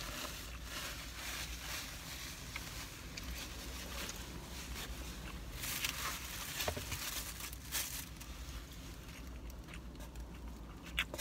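Paper wrapping and a foam takeout container rustling and crinkling as they are handled, with a few louder crinkles about six and eight seconds in.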